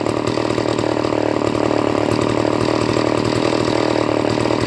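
John Deere 50V chainsaw, an Echo-built two-stroke from the early 1980s, idling steadily.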